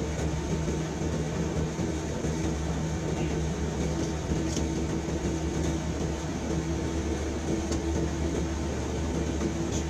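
Steady engine drone and road noise heard from inside a truck cab cruising at freeway speed, with a low, even hum.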